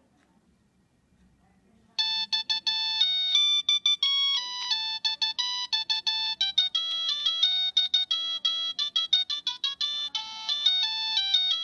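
Nokia 3586 cell phone ringtone: a quick beeping melody played one note at a time, starting about two seconds in after a short near-silent pause.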